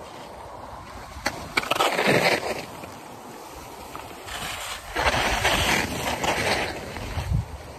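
Skis scraping across snow in two separate rushes of hissing scrape, each lasting a second or so, over a low rumble.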